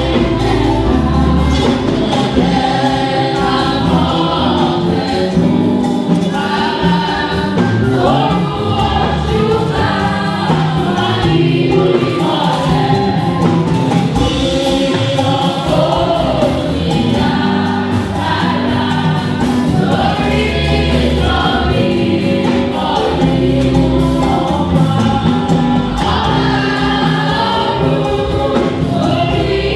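A choir singing a gospel song over instrumental accompaniment with a moving bass line.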